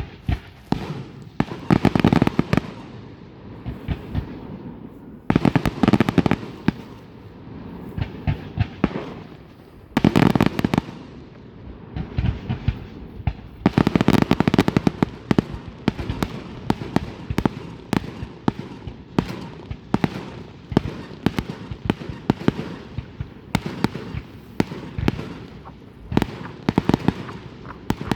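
Fireworks going off: volleys of sharp bangs and crackling, in heavy clusters every few seconds with scattered cracks between.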